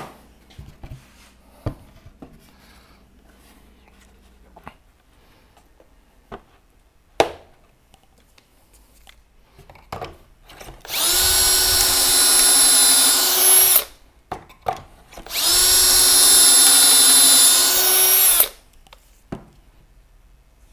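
Power drill boring pocket holes in plywood through a Kreg pocket-hole jig: two runs of about three seconds each with a steady whine. Scattered clicks and knocks come before them as the jig and workpiece are handled.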